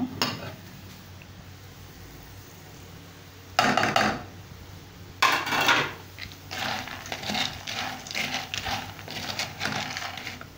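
A wooden spoon stirring small tube pasta, browned in oil, in a pot as spices are mixed in, the pasta rattling and scraping against the pot. Two short, louder clatters come about 3.5 and 5 seconds in, followed by a run of irregular scraping strokes.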